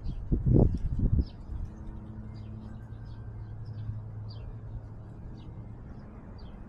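A small bird chirping over and over, short notes about twice a second, over a steady low hum. A few loud low bumps in the first second or so.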